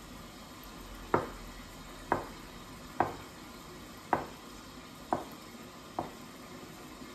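A kitchen knife slicing a mini avocado on a wooden cutting board: six sharp knocks of the blade hitting the board, about one a second. Under them runs a faint steady sizzle of chicken frying in a lidded pan.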